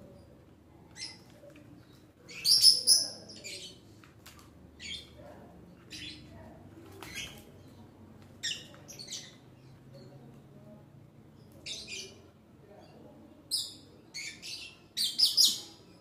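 Small birds chirping: short, high chirps every second or so, with louder bursts of several chirps about two and a half seconds in and near the end.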